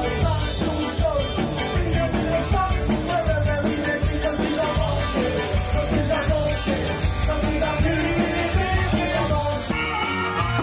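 Live ska band playing, with a singer and saxophone over the band. Near the end it cuts abruptly to a different live recording with a brighter sound.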